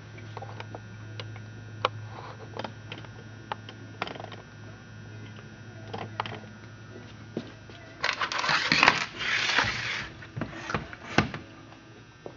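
Clicks, taps and knocks of hands working on a Stihl 076 chainsaw, its cover off, with a louder stretch of rattling and scraping about eight seconds in. A steady low hum runs underneath.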